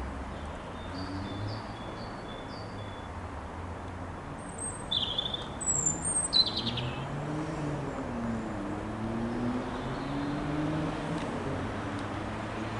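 Boeing 777 airliner's jet engines droning overhead on descent, a steady low rumble whose pitch slowly slides down and back up. Small birds chirp over it: a few high chirps about a second in, and louder chirps, the loudest sounds here, around five to seven seconds in.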